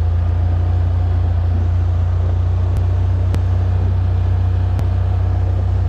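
A steady low rumble, like a motor vehicle running, with a faint steady whine above it and a few small clicks.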